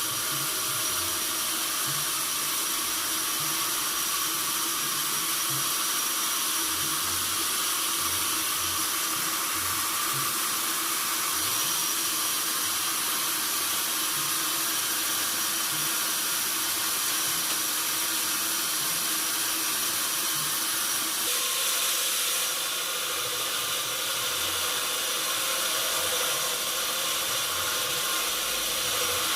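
Sawmill saw running steadily, a hissing machine noise with constant tones in it, whose pitch and tone shift about two-thirds of the way through.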